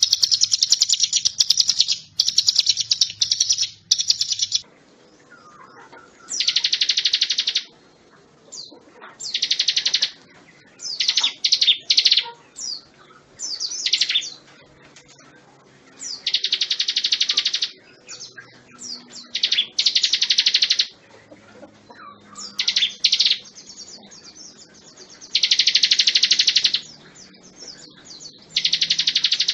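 Ciblek gunung, a prinia, singing: loud, rapid buzzing trills about a second long, repeated every few seconds with short chip notes between. For the first four seconds or so the trilling runs almost without a break.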